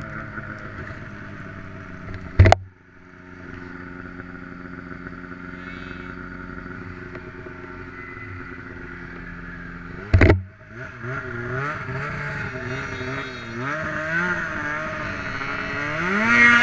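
Snowmobile engine running steadily, broken by two sharp loud knocks about eight seconds apart. After the second knock the engine speed wavers up and down, then rises near the end.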